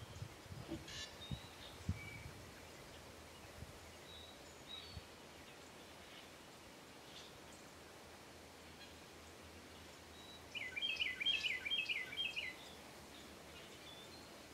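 Faint steady background with scattered faint bird chirps and a few soft low thumps in the first couple of seconds. About two-thirds of the way through, a small bird gives a quick series of about six high chirps.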